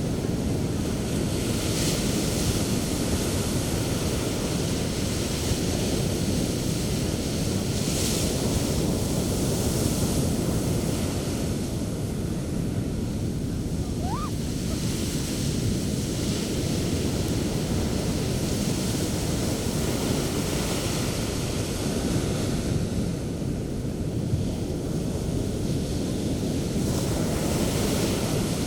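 Sea waves breaking and washing up the shore in foam: a continuous deep surf wash, with a brighter hiss swelling each time a wave breaks, every few seconds.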